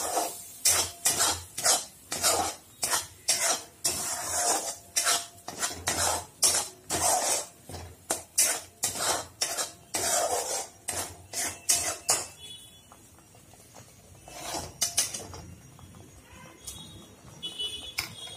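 Steel spoon scraping and knocking against a kadai while stirring a thick masala paste as it sautés, about two strokes a second. The stirring stops about twelve seconds in, with a few single strokes after.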